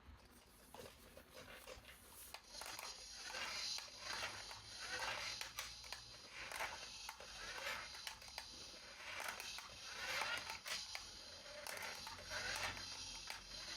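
Toy packaging being handled and opened: rustling in repeated swells about every second or two, with small clicks.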